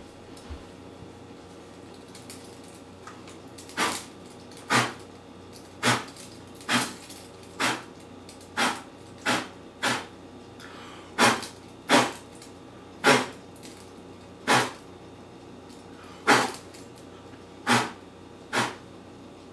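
A person blowing hard at trick birthday candles that keep relighting: about fifteen short, sharp puffs of breath, starting about four seconds in and coming roughly once a second.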